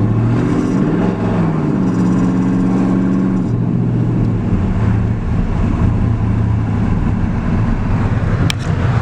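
Pickup truck's cammed V8 accelerating under part throttle (about 60%): the engine note rises over the first second, holds, then settles lower about three and a half seconds in. A short sharp click near the end.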